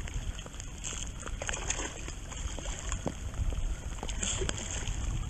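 Water sloshing and splashing around a kayak, with wind rumbling on the microphone and a few light knocks.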